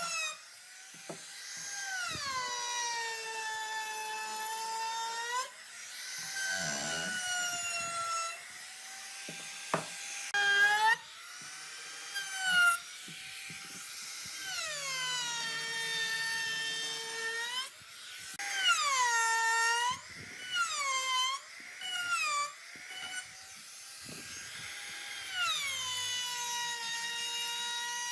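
An electric power tool's motor whining as it works wood. Its pitch sags each time it is pressed into the work and climbs back as the load comes off, over and over, with brief stops and a few knocks between passes.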